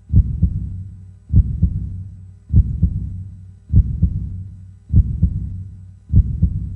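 Heartbeat sound effect beating slowly and steadily: a deep double thump, lub-dub, about once every 1.2 seconds, six beats in all.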